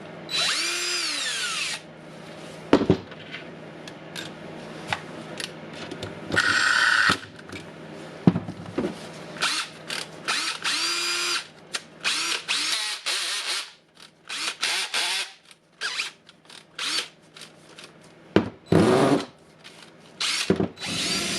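DeWalt drill driver's motor run in repeated short bursts, its whine rising as it spins up and falling as it winds down each time, with a few sharp clicks in between; the refitted chuck being test-spun.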